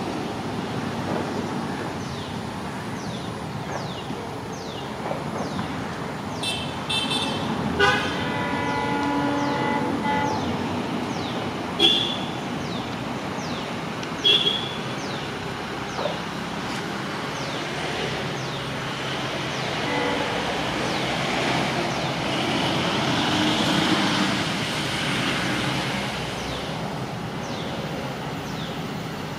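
EMD WDG4 and WDG4D diesel-electric locomotives approaching at the head of a freight train. Their engines make a steady rumble that grows louder about twenty seconds in. The horn sounds one blast of about two and a half seconds about eight seconds in. Two short, sharp high notes follow at about twelve and fourteen seconds.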